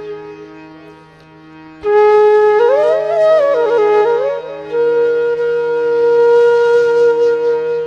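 Devotional background music on a flute over a steady low drone. A held note fades, then the melody returns about two seconds in with a short run of gliding, ornamented notes and settles on a long held note.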